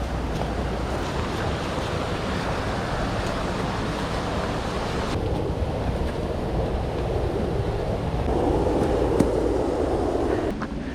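Rushing water of a mountain stream, a steady noisy wash that loses some of its hiss about five seconds in and swells louder for the last few seconds before dropping back.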